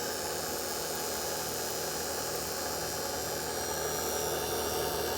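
Brushed electric motor from a 1943 gun director, fitted with new carbon brushes, running steadily on reduced voltage from a variac with an even whir and hiss that grows slightly louder a few seconds in as it builds up speed.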